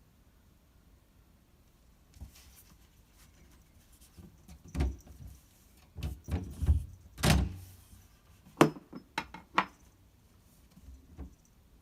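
A cat pawing and pushing at a door it cannot get open: irregular thumps and rattles of the door, busiest in the middle, with a few sharp knocks about three-quarters of the way through.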